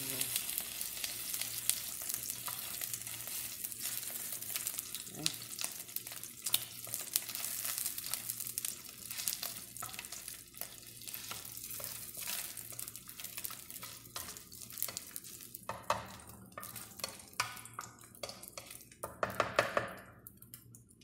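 Small pieces of fat sizzling in hot rendered oil in a nonstick wok while a wooden spatula stirs and scrapes them, with frequent clicks of the spatula on the pan. The sizzle is strongest in the first half and thins out later.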